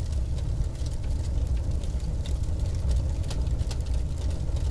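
Fire-and-embers sound effect: a deep steady rumble with many scattered sharp crackles.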